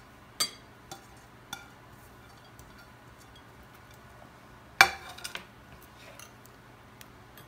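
Kitchen bowls and utensils being handled: a few light clinks in the first two seconds, then a louder clink of dishware about five seconds in, followed by several smaller taps.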